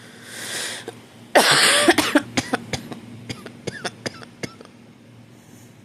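A person coughs once, hard, about a second and a half in, after a breath in, followed by a run of small clicks and throat sounds.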